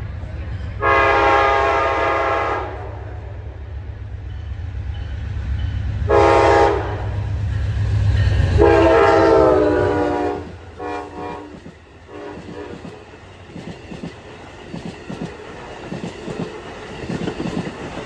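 Amtrak GE P42DC diesel locomotive sounding its horn for the grade crossing: a long blast, a short one, then a long one about 8 seconds in that drops in pitch as the locomotive passes, over the low rumble of its diesel engine. Once it has passed, the passenger cars' wheels clatter over the rail joints.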